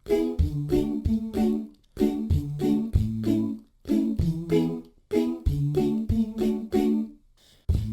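All-vocal a cappella background track: layered voices over a low vocal bass line, in short phrases that repeat in a steady rhythm.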